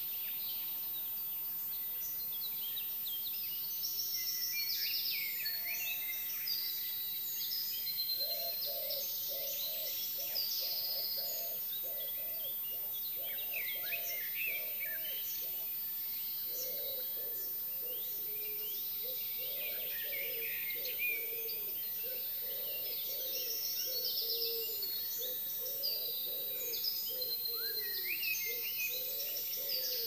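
Dawn chorus of many songbirds singing over one another, with a lower call repeated about twice a second through much of it.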